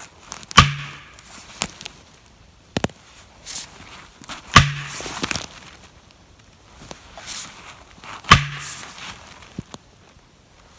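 Four heavy, sharp strikes spaced a few seconds apart, each followed by a brief low ring: an axe pounding a plastic felling wedge into the back cut of a tree leaning the wrong way.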